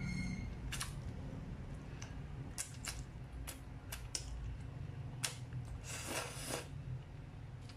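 Close-up mouth sounds of eating creamy fettuccine: a slurp of noodles, then wet chewing with sharp smacks and clicks scattered through, and a longer slurp about six seconds in. A low steady hum runs underneath.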